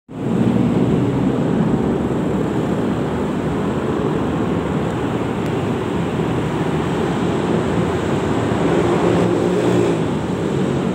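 Steady rumble from a ride on a motorbike in city traffic: engine and road noise mixed with wind rushing past the microphone.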